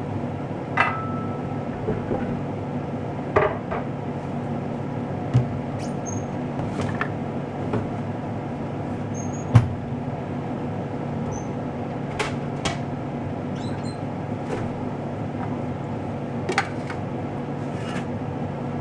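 Steady low hum with a handful of irregular, sharp clicks and knocks, the loudest about halfway through.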